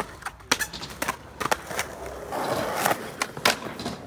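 Skateboard on concrete: wheels rolling over the ramp and ground, with about six sharp clacks of the board striking the concrete.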